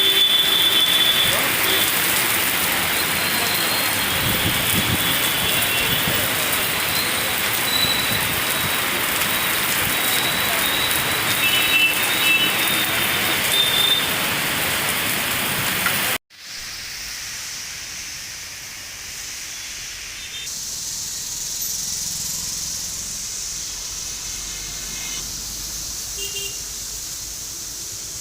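Heavy rain falling, a loud steady hiss. About 16 seconds in it cuts off abruptly to a quieter, thinner hiss of rain.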